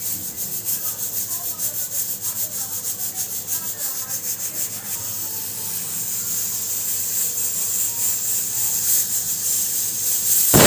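Hawkins Contura pressure cooker hissing steam past its weight valve as pressure builds, in quick puffs about four or five a second. The hiss then turns steadier and louder, and near the end the first whistle blows in a loud rush of steam.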